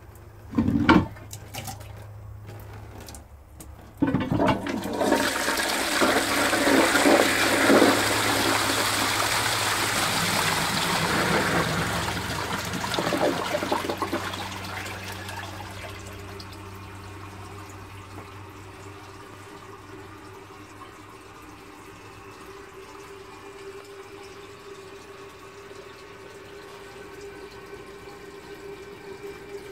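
Victorian Shanks "Reliable" cast-iron high-level cistern flushing: a sharp clunk, then a few seconds later a sudden loud rush of water into the toilet bowl that lasts about ten seconds and fades, a flush the owner calls sluggish because of the short flush pipe arrangement. It settles into a quieter steady hiss with a faint steady tone as the cistern refills through its float valve.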